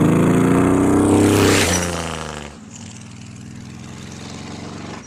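A truck accelerates past on the road with a loud engine note that climbs in pitch. The note drops suddenly as the truck passes, then fades as it drives off into the distance.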